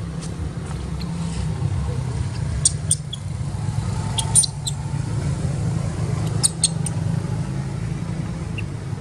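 Steady low rumble of wind on the microphone, with a few clusters of short, high squeaks about a third, half and three-quarters of the way in.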